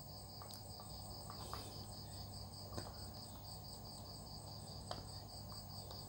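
Faint, steady high-pitched trilling of crickets, with a few soft clicks as a circuit board and its wires are handled.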